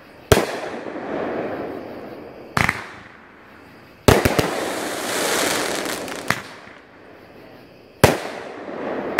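Black Cat NTF-1 500-gram firework cake firing shot after shot: a sharp bang about every two seconds, with a hissing rush between the bangs. About four seconds in, several bangs come in a quick volley.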